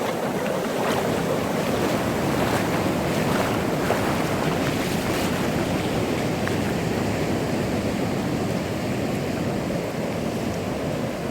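Atlantic Ocean surf washing onto a sandy beach, a steady wash of breaking waves that swells a little about two to five seconds in, with wind buffeting the microphone.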